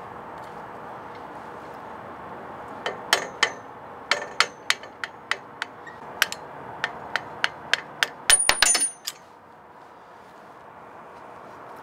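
Hammer striking a steel punch to drive the cross pin out of a Hi-Lift jack's running gear. About twenty sharp metal-on-metal taps start about three seconds in, some with a short ring, and end in a quick flurry of blows just before nine seconds.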